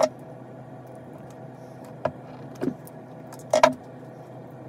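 A few separate clicks and light knocks from small wires and a plastic-insulated crimp butt connector being handled and fitted onto an inline fuse holder lead. The loudest comes about three and a half seconds in, over a steady low hum.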